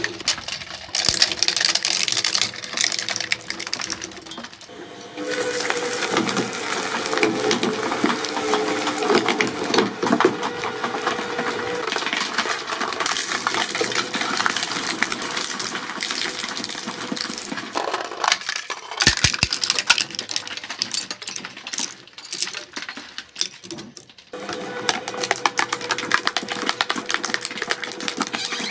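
Shredding machine running, its cutters crunching and crackling through material with dense clattering over a steady motor hum. The sound breaks off and changes character a few times.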